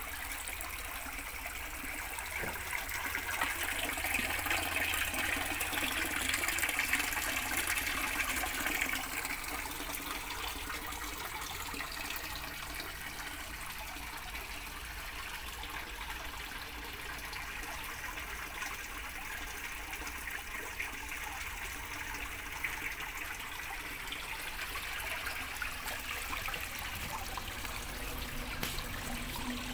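Water falling from PVC pipes into a small planted fish pond, splashing and trickling steadily, a little louder for a few seconds near the start.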